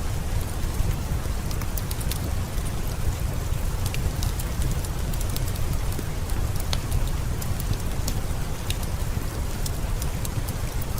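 Heavy rain falling steadily with a deep low rumble, and scattered sharp ticks throughout.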